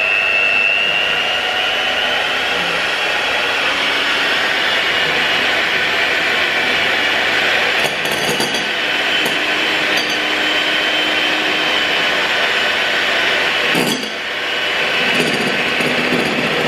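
Electric hand mixer running steadily with a high motor whine, its beaters working a block of butter in a glass bowl. The sound dips briefly about three-quarters of the way through.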